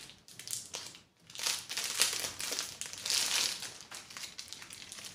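Clear plastic jewellery packet crinkling as it is handled and opened to take out a pair of tassel earrings. It comes in several irregular bouts of rustling, loudest through the middle and fading near the end.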